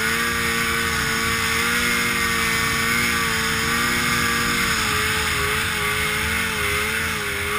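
Snowmobile engine running steadily at high revs under load up a snow slope, its pitch wavering slightly, heard from on board the sled.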